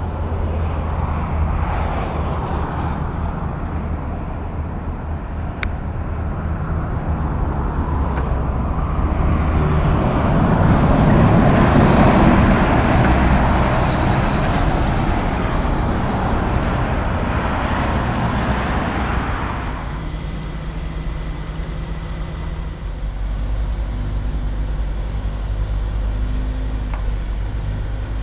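Tractor-trailer with a B-train of curtain-side trailers driving past: engine and tyre noise swells to a peak about twelve seconds in, then fades. A lower, steady engine rumble follows.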